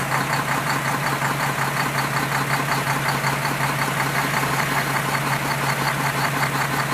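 An engine idling steadily with a fast, even knock.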